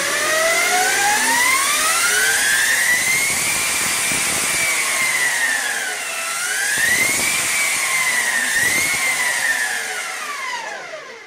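Lightning LS-218 electric superbike's motor whining as it is revved in place. The pitch climbs over the first few seconds, dips about six seconds in, rises twice more and falls away near the end.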